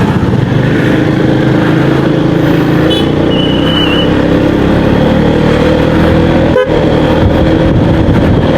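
Yamaha XMAX 250 scooter's single-cylinder engine pulling away and accelerating, its pitch rising steadily. A short vehicle horn beep sounds about three seconds in.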